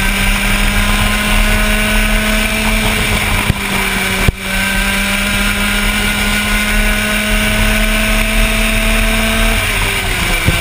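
125 cc two-stroke single-cylinder kart engine, heard from on board at speed, its note climbing steadily as the kart accelerates down the straight. Two brief sharp dropouts come about four seconds in, then the note climbs again and falls away near the end as the driver lifts for the corner.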